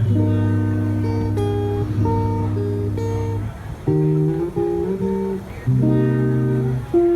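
Instrumental music with no singing: held chords that change every second or so, with brief breaks about three and a half and five and a half seconds in.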